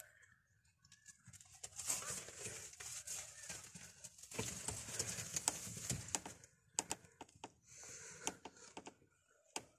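Domestic pigeons moving about in a small loft: faint rustling and shuffling with soft bird sounds. A few sharp clicks come about seven seconds in and again near the end.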